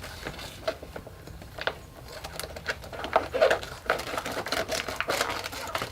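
Crinkling and rustling of the UV-cure liner material and its plastic packaging being handled, with many irregular small crackles and clicks.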